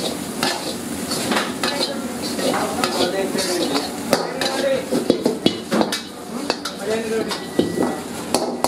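Chicken fried rice sizzling in a steel wok while a steel ladle stirs and scrapes through it, with frequent sharp clinks of the ladle against the pan.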